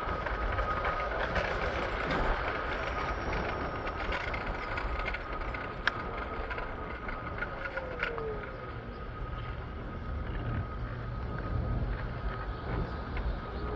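Steady rumbling noise of a ride through the city, with a faint steady whine, a sharp click about six seconds in, and a short falling squeal about eight seconds in.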